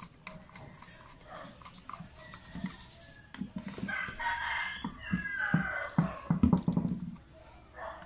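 A rooster crowing once for about two seconds, starting about four seconds in and falling in pitch at the end, over light knocks from the power planer being handled on the table.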